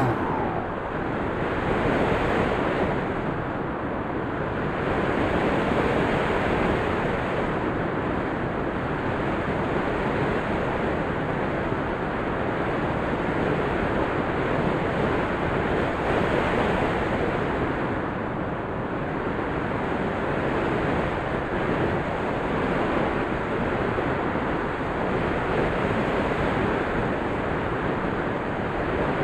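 Steady rushing of air over a microphone, swelling and easing slowly, with no pitched motor whine in it.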